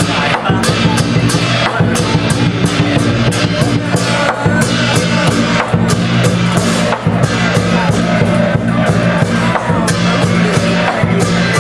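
Loud drum-and-cymbal music: a steady pounding drum with cymbal crashes coming several times a second, over a low sustained ringing.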